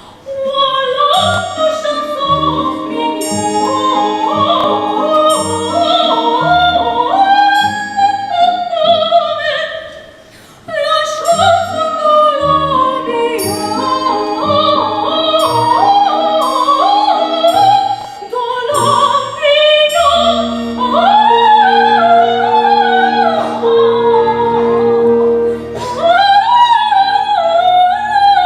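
Operatic-style stage singing with vibrato over instrumental accompaniment with short, detached bass notes. The music breaks off briefly about ten seconds in, then resumes.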